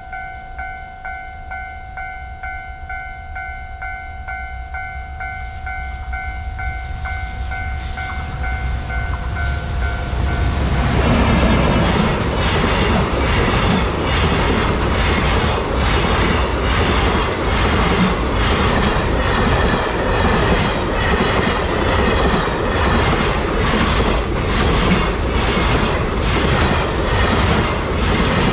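Japanese level-crossing warning bell ringing steadily while a train approaches. The bell gives way to a loud train passing over the crossing, its wheels clacking in a fast, regular rhythm over the rail joints.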